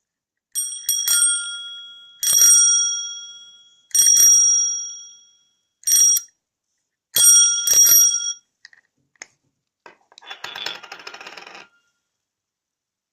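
Handlebar bicycle bell struck about seven times at irregular intervals. Each strike is a bright metallic ding with several high overtones; most ring on and fade over a second or so, while one is cut short. Near the end there is a rattling burst of quick clicks lasting about a second and a half.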